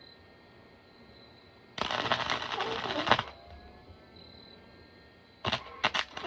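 Wire-feed welding arc from a 110-volt Chicago Electric welder crackling: one weld of about a second and a half a little under two seconds in, then a few short sputtering starts near the end.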